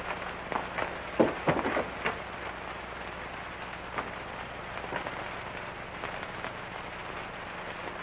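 Hiss and fine crackle of an old optical film soundtrack over a steady low hum, with a few soft knocks, a cluster of them between about half a second and two seconds in.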